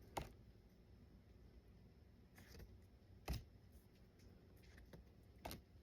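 Near silence broken by a few faint taps and clicks of trading cards being handled, the loudest a little past the middle.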